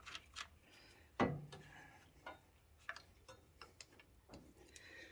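Scattered light metallic clicks and taps of hand tools and parts while a tractor alternator is unbolted, with one louder clank a little over a second in.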